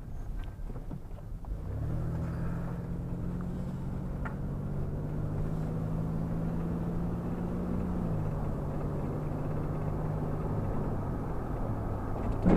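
Vehicle engine and road rumble heard from inside the cabin while driving. About two seconds in, the engine note picks up and climbs slowly, then drops back a little around eight seconds in.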